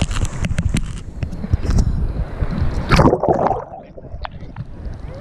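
Sea water sloshing and splashing around an action camera held at the surface in strong waves, with crackling drops on the housing. A big splash hits about three seconds in, after which the sound goes dull and muffled as the camera dips under the water.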